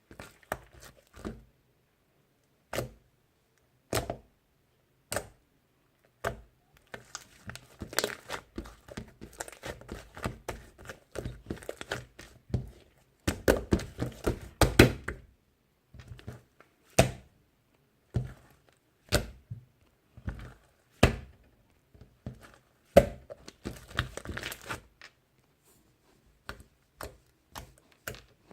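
Objects being handled close by: irregular taps, thunks and crinkling, busiest around the middle and again near the end.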